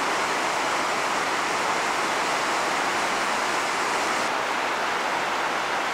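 Shell Creek's whitewater cascades rushing through a rock canyon below Shell Falls, a steady, unbroken rush of water, running high with spring snowmelt.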